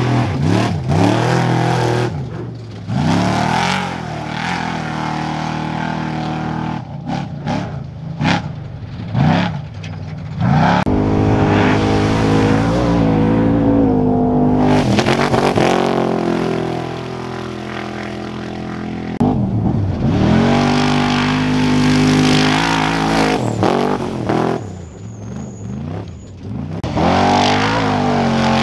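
Trophy Truck Spec off-road race trucks' engines running hard and passing, revving up and down with repeated rises and drops in pitch. The sound comes in several loud swells with quieter dips between them.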